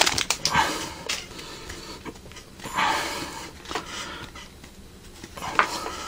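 Trading cards from a freshly opened foil pack being handled and slid past one another, in a few short soft rustles, with close breathing between them.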